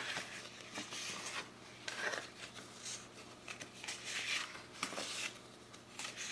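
Planner sticker sheets being handled and flipped one after another: a series of soft paper swishes and slides, with a sharp tap right at the start.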